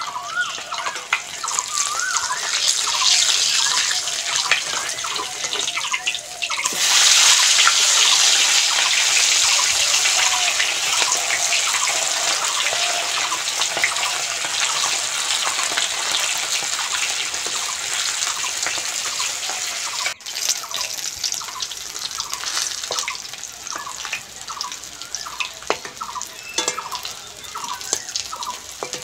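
Pieces of foluii fish (bronze featherback) frying in hot mustard oil: a steady sizzle, louder for a stretch from about seven seconds in. After a sudden break near twenty seconds it goes on quieter, with scattered sputtering pops.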